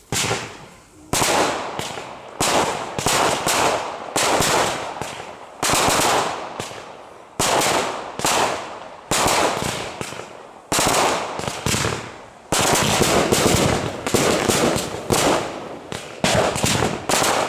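Aerial fireworks shells bursting in quick succession: more than a dozen sharp bangs, each followed by a long rolling echo, coming about once a second and bunching into rapid clusters in the later part.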